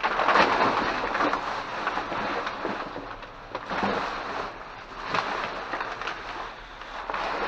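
Rustling, scraping and knocking of cardboard boxes and packaged calendars being rummaged through in a dumpster, with many small knocks throughout.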